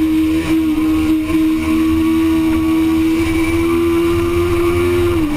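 2005 Suzuki GSX-R600's inline-four engine running hard at high revs on track, a steady high note held through a fast corner, dropping slightly in pitch near the end.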